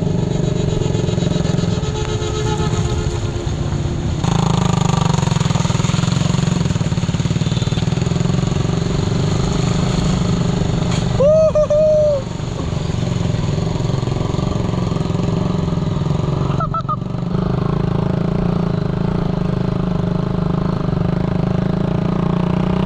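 Honda 150cc dirt bike engine running steadily as it is ridden slowly over a rough off-road stretch. A brief, loud two-note pitched sound stands out about eleven seconds in.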